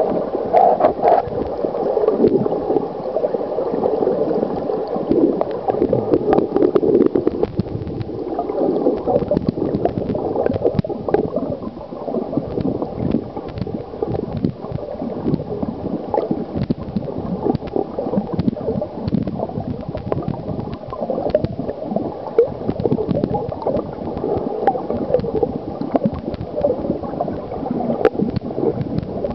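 Running water heard underwater in a stony stream: a steady muffled gurgling and bubbling, with many small clicks and pops throughout.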